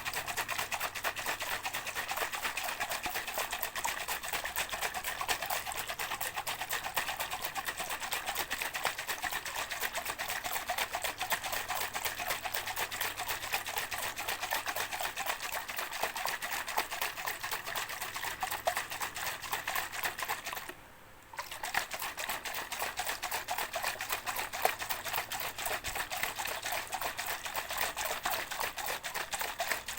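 A shaker rattling continuously as it is shaken fast, a dense stream of small clicks, with one short break about 21 seconds in.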